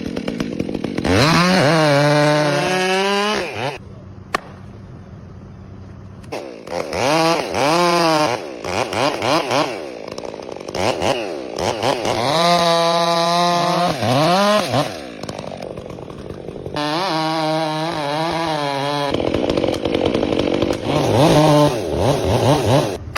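Two-stroke chainsaw running in repeated bursts of high revs, its pitch rising and falling, dropping back to a lower, quieter run between bursts about five times.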